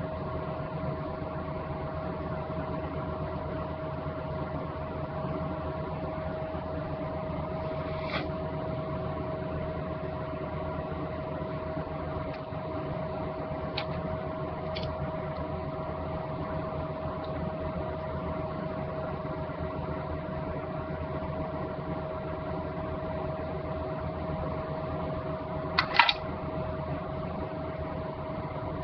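Steady mechanical hum with one constant tone. A few faint clicks, and a sharper double click near the end, as makeup items are handled.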